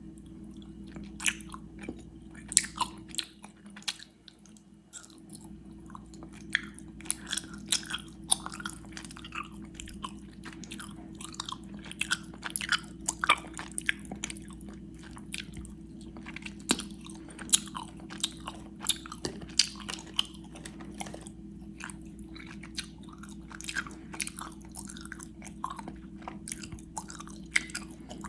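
Close-miked chewing of gummy worms: dense, irregular wet, sticky smacks and clicks of the mouth working the chewy candy, with a short lull a few seconds in.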